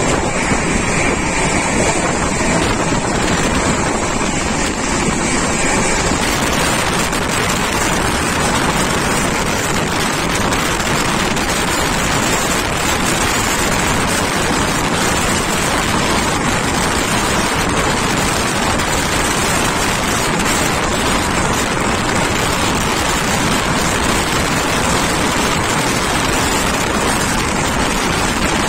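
Steady rushing noise of a moving passenger train: wheels running on the rails with wind blowing past the open coach door and onto the microphone. About six seconds in, the hiss grows brighter.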